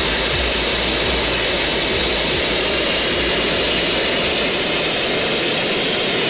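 Steady, loud jet turbine noise, an even rushing roar with no bursts. The low rumble thins out about five and a half seconds in.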